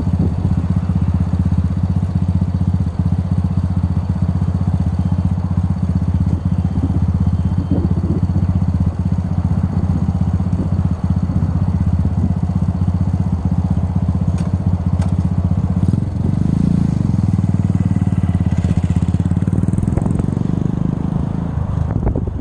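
Motorcycle engine running steadily under way, with wind rushing past. It gets a little louder about two-thirds of the way through and eases off near the end.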